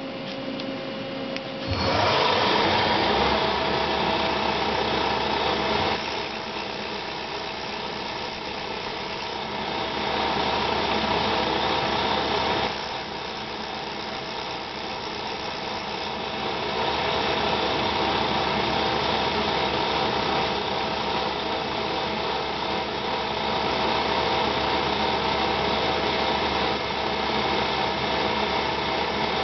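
A Milltronics CNC mill's spindle runs and its milling cutter cuts an acrylic blank: a steady machining whine with a grinding hiss. It starts about two seconds in and grows louder and softer as the cut comes and goes over the part.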